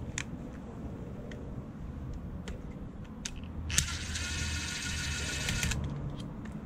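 Cordless drill-driver whirring for about two seconds, starting about four seconds in, as it backs out a screw holding the voltage regulator on a motorcycle alternator. It is preceded by a few light clicks of handling the tool.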